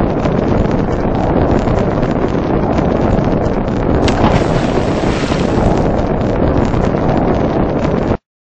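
Loud, steady rushing noise with a crackly texture, cutting off abruptly near the end.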